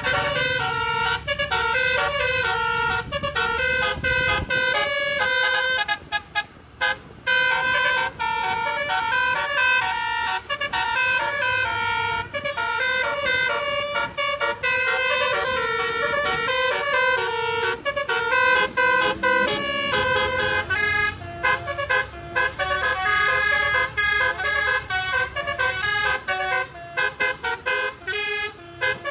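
Tour bus telolet horn, a multi-note musical air horn, playing a fast, catchy tune of quick stepped notes, with a short break about six seconds in.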